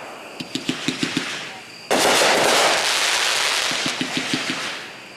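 A 42-shot consumer fireworks cake (Boomwow 'I Love America') firing. A run of rapid crackling pops comes first. About two seconds in there is a sudden loud bang that rings out and fades over a couple of seconds, then another run of crackling pops, and a fresh bang right at the end.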